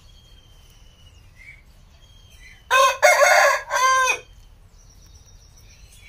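A rooster crowing once, a loud crow about a second and a half long, starting about three seconds in.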